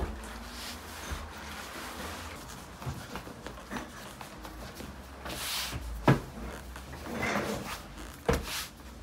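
Hands rubbing, folding and pressing a large sheet of layered samsa dough on a floured wooden table, with two thumps in the second half as the dough is pressed down.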